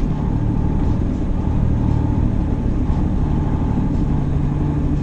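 Semi-truck's diesel engine running steadily with road noise, heard from inside the cab while driving.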